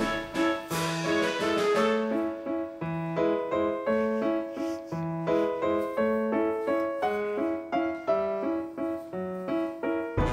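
Background music: a keyboard tune of quick, even notes over a repeating bass line.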